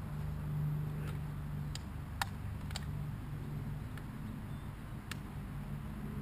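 Scattered light metallic clicks and taps as aluminium soda cans are fitted onto a dirt bike's exhaust pipe, about half a dozen, the sharpest about two seconds in. A steady low hum runs underneath.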